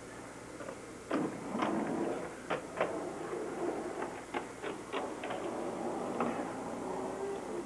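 Inline skate wheels rolling on a concrete walk, with a run of irregular sharp clicks and knocks as the skates strike the pavement and its joints.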